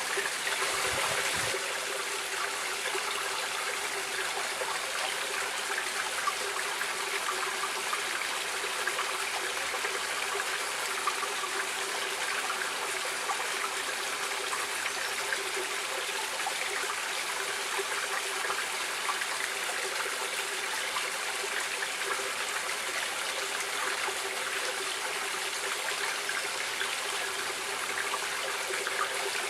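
Running water of a stream flowing steadily, a constant rush dense with many small splashes, a little louder in the first second or so.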